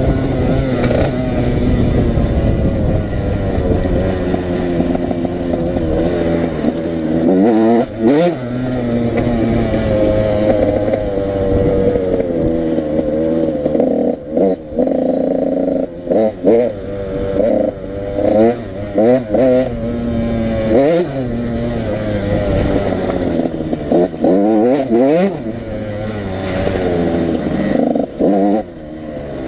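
85cc motorbike engines being revved, the pitch climbing and falling again and again in repeated throttle blips, at times with more than one engine sweeping at once.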